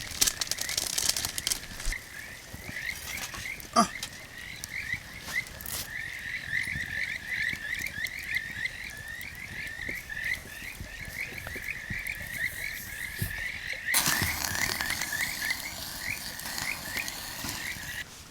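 A chorus of frogs calling: a steady run of short, rapid, slightly rising chirps, several a second. A sharp click comes about four seconds in, and a rushing noise sets in near the end.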